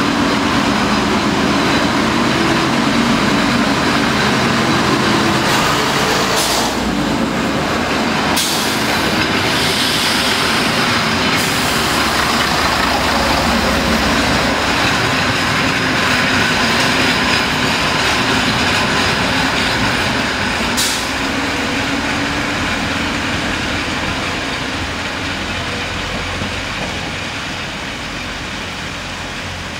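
FS ALn 668 diesel railcar set rolling past close by: diesel engine and wheel-on-rail noise, with a few sharp clicks along the way, fading as the train draws away near the end.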